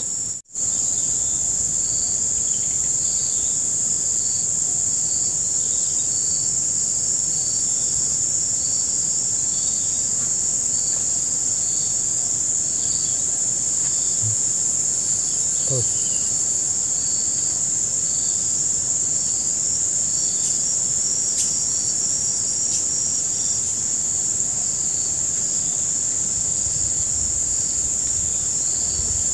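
Insects droning steadily in a high, shrill tone, with another insect chirping over it in short pulses about once a second.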